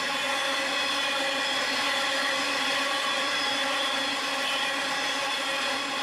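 Coal train hopper wagons rolling past at a steady level: a continuous wheel-on-rail rumble with a steady whining tone over it.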